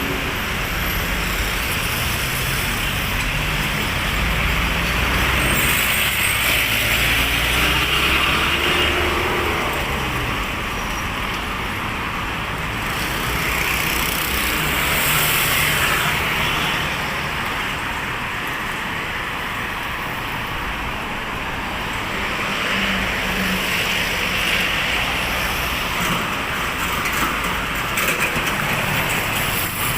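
Street traffic: a steady wash of passing cars and other motor vehicles, with a low engine rumble swelling as a vehicle goes by a few seconds in and louder passes again in the middle and near the end.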